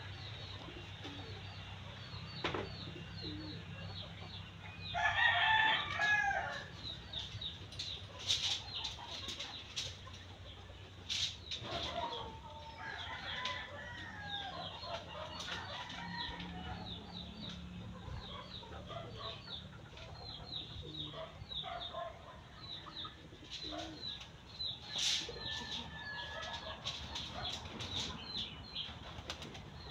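Chickens: a rooster crows once about five seconds in, the loudest sound, and hens cluck on and off afterwards. Under them run a fast, continuous high chirping and a low steady hum.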